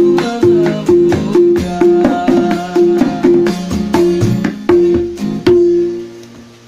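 Dangdut music led by a kendang hand drum, sharp pitched strokes about twice a second over a melodic instrument. It ends with a final stroke about five and a half seconds in that rings out and fades.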